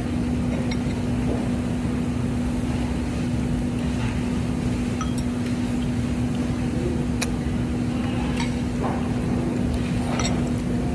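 Steady low rumble with a constant hum, broken by a few light clinks of tableware.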